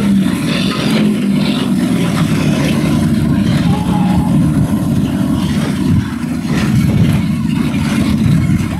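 Heavy diesel coach and bus engines running hard on a racing track: a loud, low, steady rumble, with a coach passing close by about halfway through.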